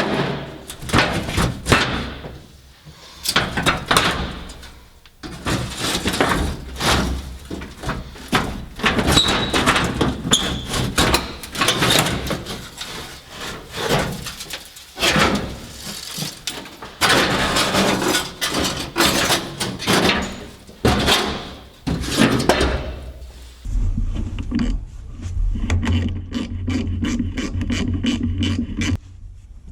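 Irregular knocks, clunks and scraping of tools and metal parts being handled while a truck cab is stripped out. About six seconds from the end this gives way to a steady low mechanical hum.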